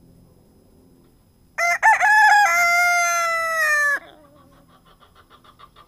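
Silkie rooster crowing close up: two short opening notes and then a long held note that drops in pitch as it ends, about two and a half seconds in all.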